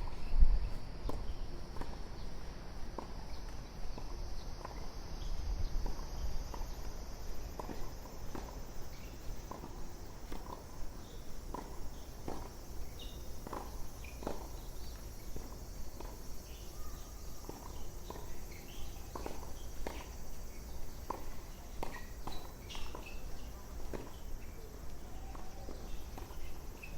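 Footsteps at a steady walking pace, about one step every three-quarters of a second, over a steady high-pitched summer cicada chorus.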